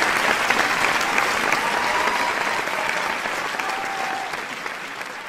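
Audience applauding, a dense, even clapping that slowly fades away toward the end.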